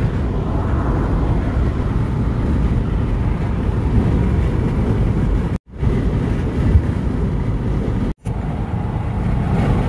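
Steady low rumble of road and wind noise inside a moving car, cutting out for an instant twice.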